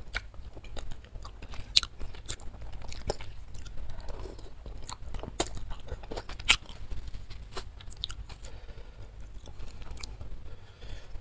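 Close-miked eating of instant noodles in spicy soup: chewing with many short, sharp, wet mouth clicks and smacks.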